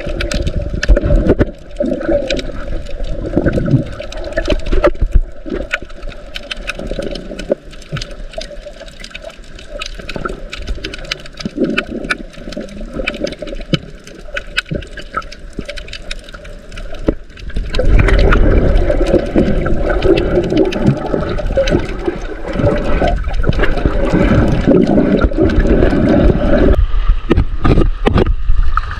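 Sea water rushing and gurgling against a camera held underwater while snorkeling, with a constant crackle of small clicks. About two-thirds of the way in it turns louder and fuller.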